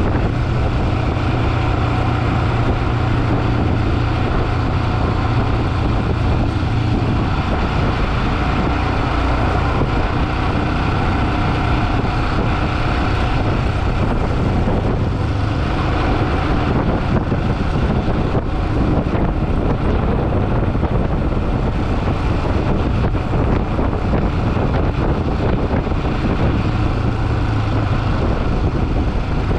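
Motorcycle engine running steadily while riding on the road, with wind rushing on the microphone. The engine note shifts slightly about a quarter and halfway through.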